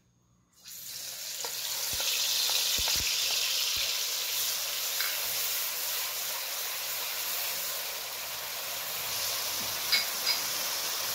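Ground onion, garlic and pepper hitting hot oil in a wok: a sudden loud sizzle about half a second in, then steady frying as a wooden spoon stirs it. A few knocks and clicks of the spoon against the pan come through. This is the chunkay, the seasoning being fried in hot oil at the start of the curry.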